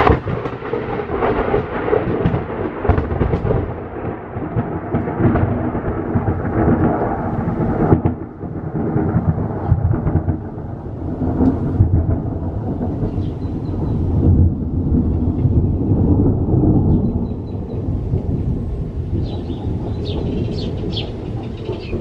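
Thunder: a sudden loud crack right at the start, then long rolling rumbles that swell and fade, with another loud peal about eight seconds in.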